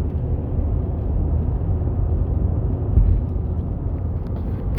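Steady low rumble of road and engine noise inside a moving car's cabin, with a brief louder thump about three seconds in.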